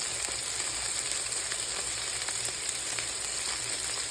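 Beef burger patties frying in a pan, a steady sizzle with small crackles and pops.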